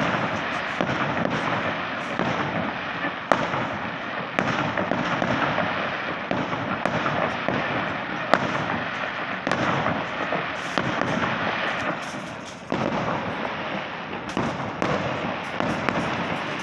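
Aerial fireworks going off in a steady stream of pops and crackle with many sharp bangs, the loudest a little after three seconds and at about eight seconds. The firing thins briefly near twelve and a half seconds, then picks up again.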